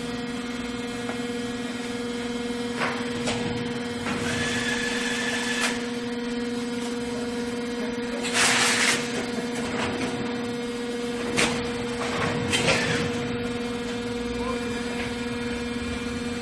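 Automatic strapping machine running with a steady electric hum, broken every few seconds by short mechanical noises: a rasp, a sharp hiss and clicks as the machine works through its strapping cycle.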